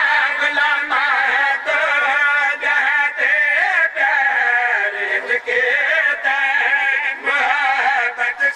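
Several men singing a Punjabi devotional refrain together, unaccompanied, with long wavering drawn-out notes.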